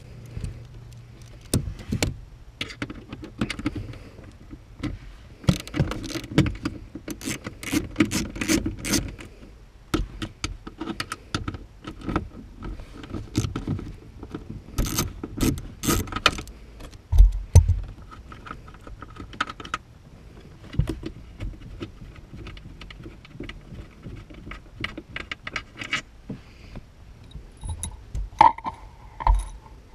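Irregular metallic clinks and taps of a 10 mm wrench working the instrument-binnacle bolts under a car's dashboard, with two heavier knocks around the middle.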